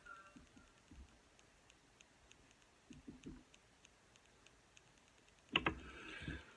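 Quiet room with faint, even ticking about three times a second, a few soft low knocks about three seconds in, and a sharper click followed by brief rustling near the end.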